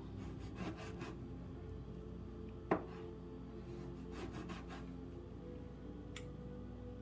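Kitchen knife slicing raw pork thin on a cutting board: two runs of short scraping strokes, with a sharp knock of the blade on the board about three seconds in.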